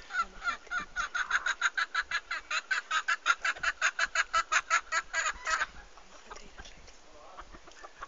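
An animal giving a fast, even run of short calls, about six a second, which stops abruptly about five and a half seconds in.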